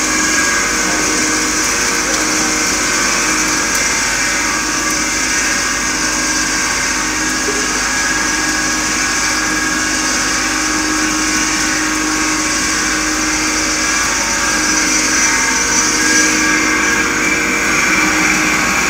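Industrial hot air popcorn machine running, a steady machine hum with several held whining tones over a high hiss.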